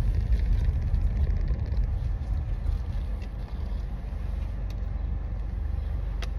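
Steady low rumble of a car's engine and road noise heard from inside the cabin.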